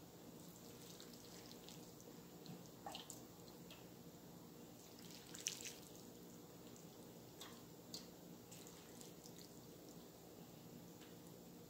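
Broth being ladled over noodles in a bowl: a few faint drips and small splashes, with light ladle touches, over a low steady room hum.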